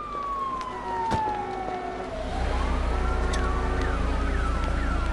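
A siren sample in the music soundtrack: a long wail falling in pitch, then rising again about two seconds in, with quick repeated falling chirps over it. A deep bass comes in with the rise.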